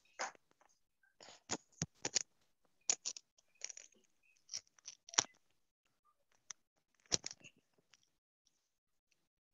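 Handling noise: irregular scrapes, rubs and clicks of objects being moved close to a microphone, the loudest about five and seven seconds in.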